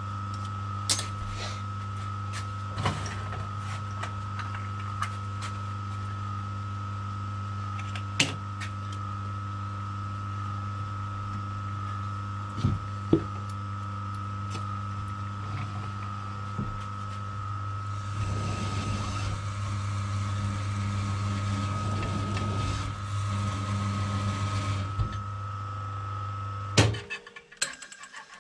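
Small metal lathe running steadily with a hum and a high whine, with scattered light clicks, while an M6 thread is tapped into the end of a bolt. A rougher scraping noise runs for several seconds in the later part. Near the end the motor is switched off and the hum stops abruptly, followed by a few knocks.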